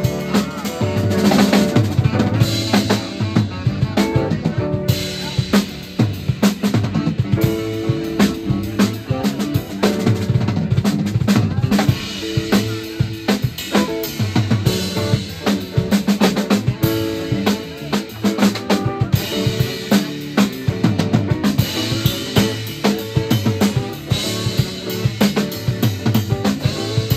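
Live psychedelic jazz band playing an instrumental passage: a drum kit keeps up a busy beat of kick and snare hits under electric guitars.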